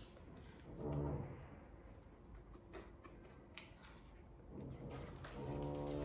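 Someone eating crispy deep-fried chicken frame: scattered crisp crunches and bony clicks while chewing, with a low closed-mouth hum about a second in and again near the end.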